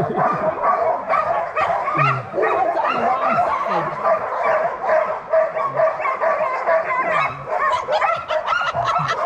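A team of harnessed sled dogs barking, yipping and whining all together in a continuous chorus: the excited clamour of dogs eager to start pulling.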